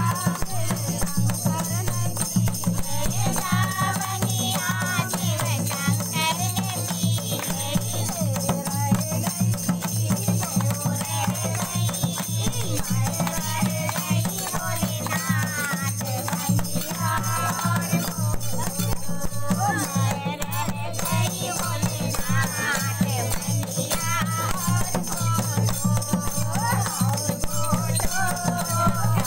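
Group of women singing a Hindu devotional kirtan in chorus, accompanied by a dholak barrel drum, handclaps and a jingling wooden rattle.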